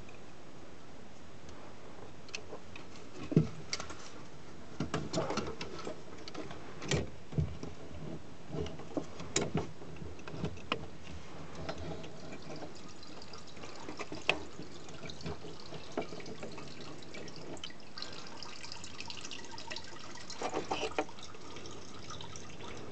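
Nissan AD fuel pump module being worked up and out of the petrol tank: scattered plastic clicks and knocks, with petrol dripping and trickling back into the tank.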